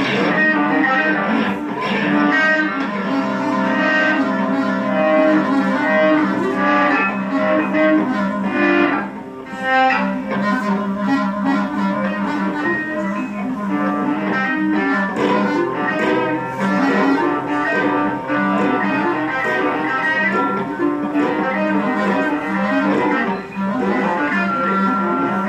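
Live improvised music for clarinet and two electric guitars, one of them played flat on the lap: long held tones over a dense, shifting layer of guitar sound, with a brief drop in loudness about nine seconds in.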